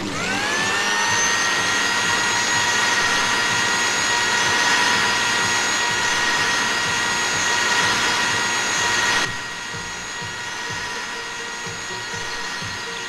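Electric kitchen blender motor starting, its whine rising in pitch over about a second, then running steadily as it blends cake batter. About nine seconds in the level drops abruptly and it keeps running more quietly.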